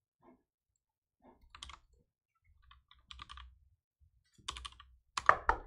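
Typing on a computer keyboard in scattered short runs of keystrokes, the loudest run of clicks near the end.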